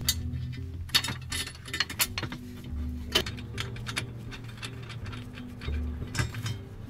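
Scattered sharp metallic clicks and clinks as a welded metal bracket is handled and pressed up against a car's underbody, the loudest about a second in and again about three seconds in, over quiet background music.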